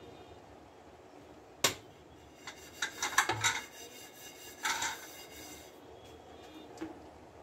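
Kitchen stovetop sounds: one sharp metallic clink, then short clusters of clattering and clicking a second later and again near the middle, over a low steady background hiss.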